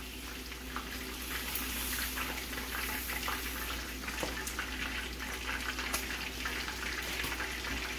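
Chicken thighs frying in hot oil in a cast-iron skillet: a steady sizzle with many small crackles.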